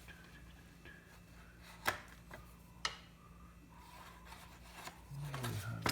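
Two sharp clicks about a second apart, with faint rubbing of material being handled, over a low steady hum.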